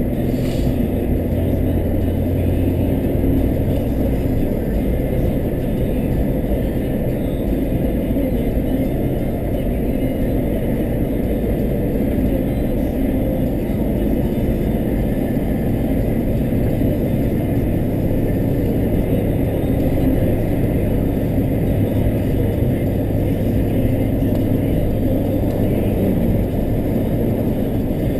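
Steady low rumble of a car on the move, engine and road noise running on without a break.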